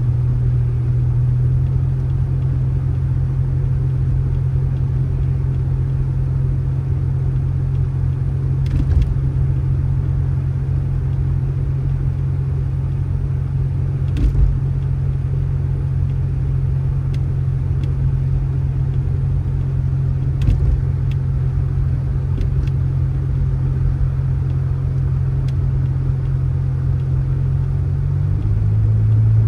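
A motor vehicle's engine running with a steady low drone, with a few faint knocks. The drone's pitch shifts slightly higher near the end.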